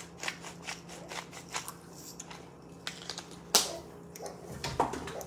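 Irregular light clicks and knocks, with one louder sharp knock about three and a half seconds in and a duller thud about a second later, over a faint steady hum.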